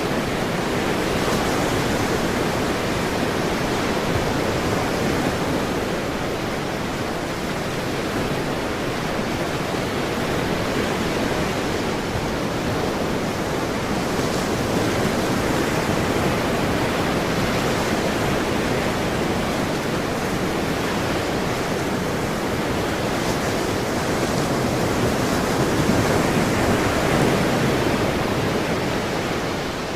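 Ocean surf: a steady wash of breaking waves, swelling gently and easing back every several seconds.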